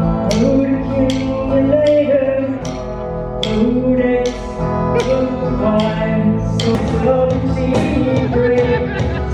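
Live rock band playing: electric guitar and bass under a steady drum beat of roughly one hit a second, with a sung melody line over it.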